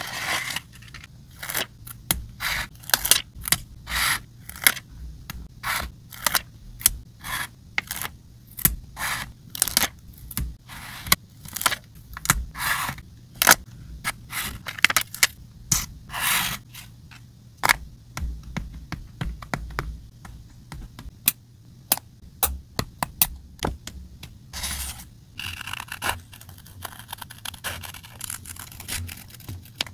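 Small scissors cutting through a paper card: a steady run of short, crisp snips, about two a second, with a few longer scraping passes of the blades through the paper.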